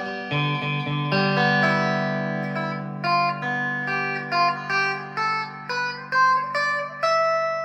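G&L Legacy Tribute electric guitar with Alnico 5 single-coil pickups, played clean through a Line 6 amp: a chord is struck and left ringing while single notes are picked over it one after another. The tone is glassy and twangy.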